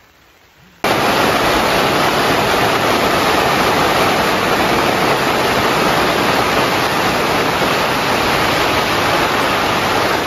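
Heavy rain lashing down on a polytunnel's polythene cover, heard from inside as a loud, steady hiss that comes in suddenly about a second in.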